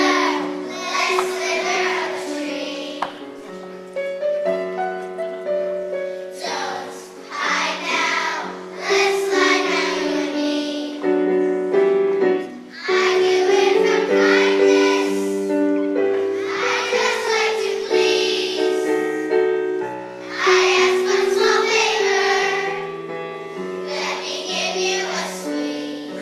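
Children singing together in phrases of a few seconds, with held instrumental accompaniment notes continuing between the phrases.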